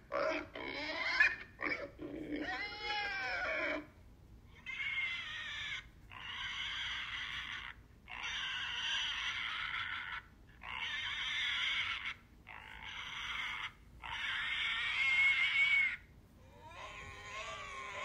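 Pigs squealing. In the first few seconds come short high calls that bend up and down in pitch. Then follows a run of about six harsh, high squeals, each around a second and a half long with brief pauses between, and a lower-pitched call begins near the end.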